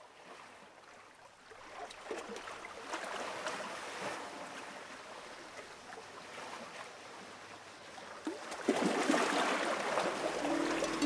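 A rushing, water-like noise with scattered crackles that swells a couple of times and grows louder; near the end steady musical notes come in as music begins.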